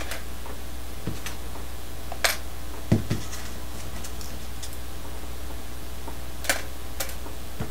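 Small plastic model locomotive parts being set into a clear plastic tub: a handful of scattered light clicks and taps, with one duller knock about three seconds in, over a steady low hum.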